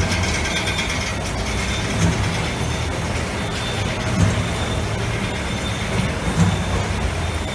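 Cardboard laminating machine running: a steady mechanical rumble and rattle, with a louder knock about every two seconds.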